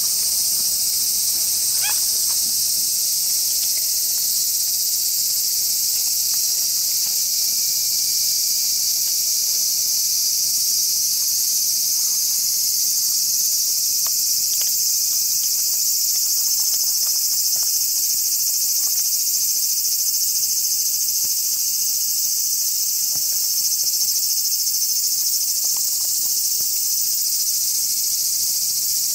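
Steady, high-pitched insect chorus of summer crickets or cicadas, unbroken throughout.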